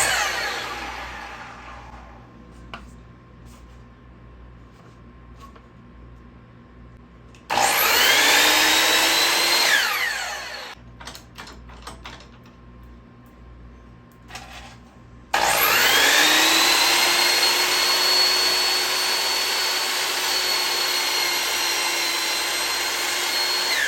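Electric power saw cutting wood to length. It winds down at the start, then runs twice: a short run of about two seconds, then a longer one of about eight seconds. Each run starts with a rising whine and then holds a steady pitch.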